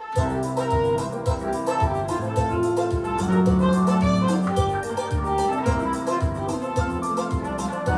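Cape Verdean coladeira played on an electronic keyboard: a bright keyboard melody and chords over a steady backing of drums and bass.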